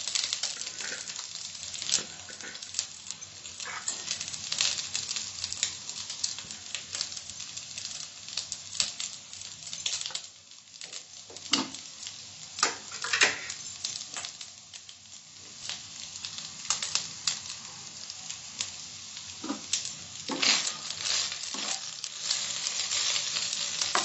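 Boiled basmati rice sizzling in hot oil in a nonstick kadai, with scattered taps and scrapes against the pan. The sizzle eases in the middle and picks up again near the end, as a wooden spatula starts stirring the rice.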